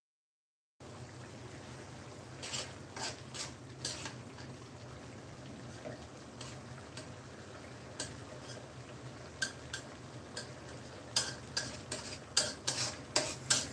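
A spatula stirring thick, simmering masala in a wok, with scattered clicks and scrapes of the spatula against the pan over a steady hiss. The sound begins about a second in, and the knocks come more often near the end.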